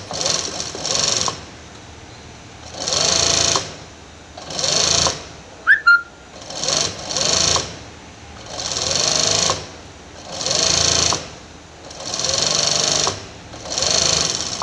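Industrial sewing machine stitching in about nine short runs, each speeding up and slowing down, with short pauses between as the fabric is turned. Near the middle a brief, sharp, high squeak stands out as the loudest moment.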